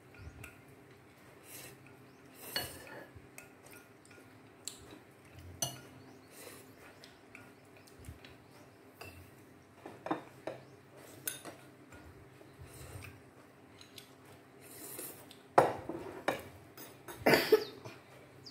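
Metal spoons and chopsticks clinking and scraping against ceramic bowls during a meal: scattered light clicks, loudest in a cluster near the end.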